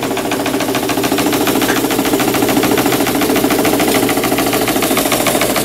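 Märklin 4159 live-steam stationary engine running steadily with a fast, even beat while belt-driving its small dynamo.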